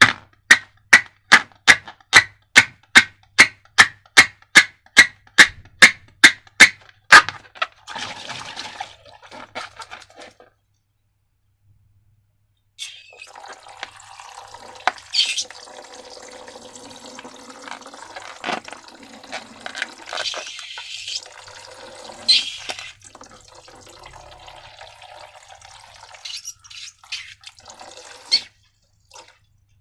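Slime being handled by hand. It starts with a regular run of sharp clicks, about three a second, that stops about seven seconds in. After a short pause comes a long stretch of wet squelching with a few louder pops.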